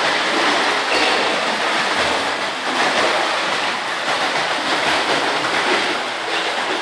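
Splashing of several children swimming together in an indoor pool, their kicks and arm strokes churning the water into a steady wash of noise.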